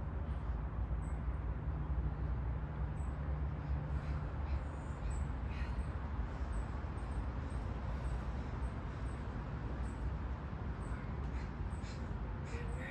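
Steady low background rumble with a light hiss over it, and a few faint short calls now and then.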